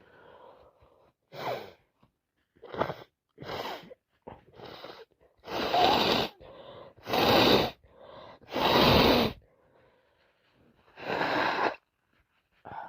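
A woman with a cold taking short catching breaths, then four loud wet sneezes.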